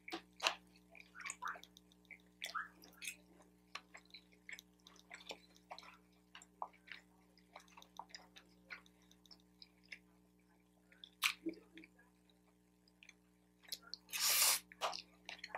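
Mouth noises of eating: wet chewing and lip smacks, with fork clicks against the takeout tray. About 14 seconds in comes a loud slurp as a forkful of lo mein noodles is sucked in.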